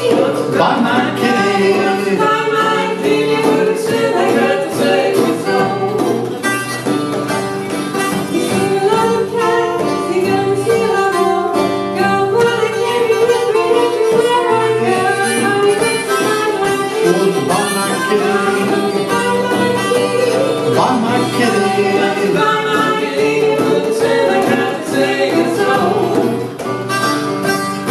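Acoustic blues band playing an instrumental break: harmonica leading over acoustic guitar and djembe.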